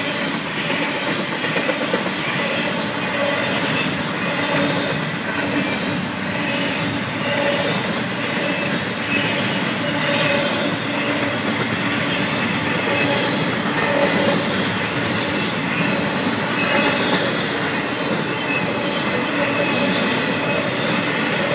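Florida East Coast Railway intermodal freight train rolling past at a steady speed, its flatcars of containers and truck trailers making a continuous, even rolling noise.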